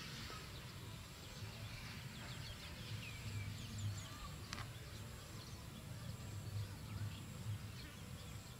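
Faint outdoor ambience: scattered small bird chirps over a low, pulsing rumble, with a single sharp click about halfway through.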